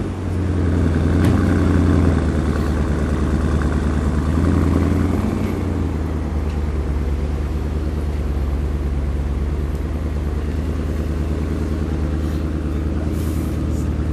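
Porsche Panamera Turbo S twin-turbo V8 running at a raised idle just after start-up, swelling briefly a couple of times, then settling to a steady, lower idle about six seconds in.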